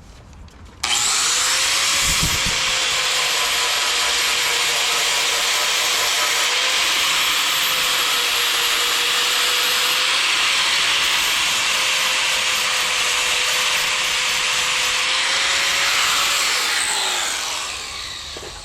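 Angle grinder grinding down weld beads on the car's steel frame rail: it starts abruptly about a second in, a steady harsh grinding hiss over the motor's whine, which sags slightly under load. Near the end it is switched off and the whine falls as the disc winds down.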